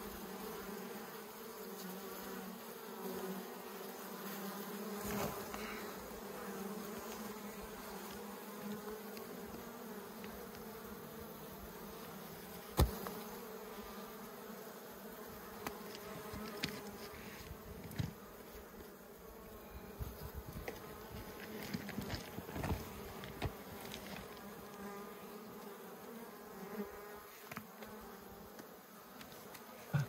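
A colony of wild honeybees, taken out of its rock cavity, buzzing in a steady dense hum. A few sharp clicks and knocks cut through it, the loudest about halfway through.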